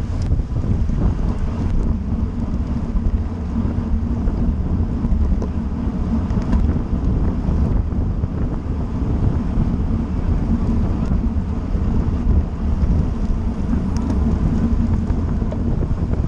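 Wind buffeting the microphone of a camera on a road bicycle riding at race speed in a pack: a steady, loud low rumble.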